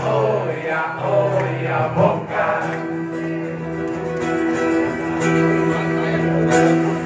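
Live band music with guitar. A voice sings over it in the first two seconds or so, then the band holds steady sustained chords.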